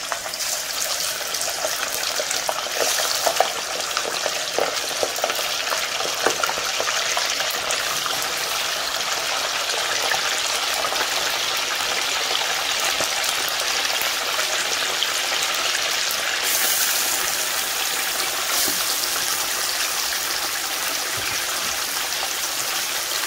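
Raw chicken pieces deep-frying in hot oil in a karahi: a steady, loud sizzle, with sharper crackles now and then in the first few seconds.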